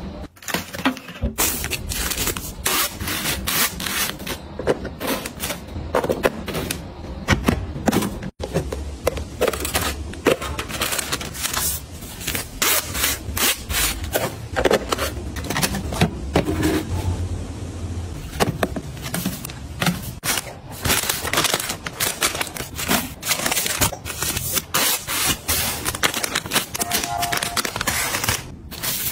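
Small household items being handled and set down: a dense stream of clicks, taps, rustles and scrapes.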